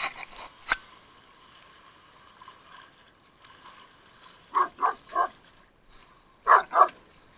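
A dog barking: three quick barks about halfway through, then two more near the end.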